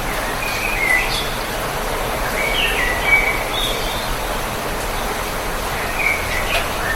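Steady rainfall hiss with birds chirping over it: short gliding call phrases in three groups, near the start, around the middle and near the end.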